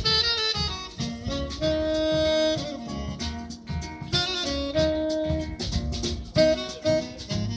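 Live jazz: a tenor saxophone plays a melody of long held notes over plucked double bass and harp.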